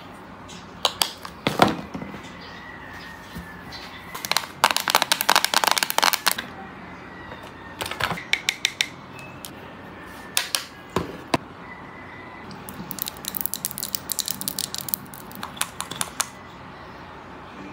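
Typing on a computer keyboard: two fast runs of key clicks, with single key taps between them.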